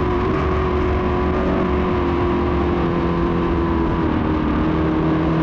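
Dirt modified race cars running laps around the track: a steady wall of V8 engine noise with held tones that sag slightly lower near the end.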